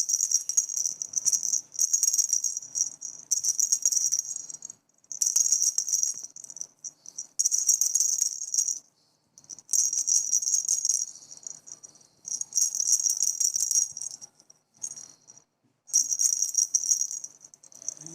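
Rattle inside a soft plush baby ball being shaken in repeated bursts with short pauses between them, giving a bright, high-pitched rattling.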